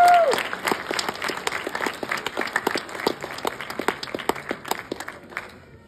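Audience applauding, many hands clapping, dying away over about five seconds. A single short rising-and-falling whoop sounds right at the start.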